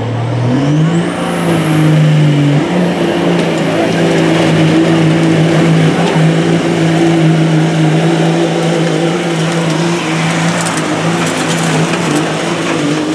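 Dodge Ram pickup's turbo-diesel engine at full throttle, pulling a weight-transfer sled: it revs up about a second in as a turbo whistle climbs steeply in pitch, then holds steady at high revs under heavy load.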